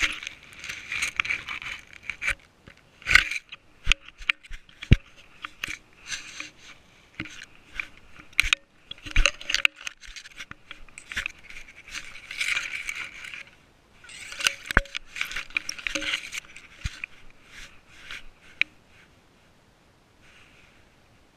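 Dry grass, twigs and leaves rustling and scraping against a GoPro Session camera worn by a walking cat, in irregular spells with scattered sharp ticks and knocks. It dies down to a faint rustle near the end.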